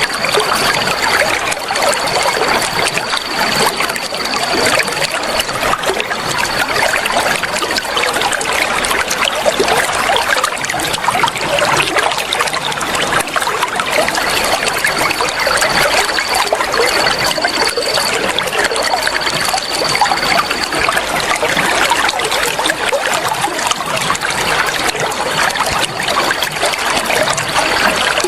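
Water flowing and trickling steadily. A thin high steady tone sounds over it in stretches of one to three seconds, stopping for several seconds in the middle.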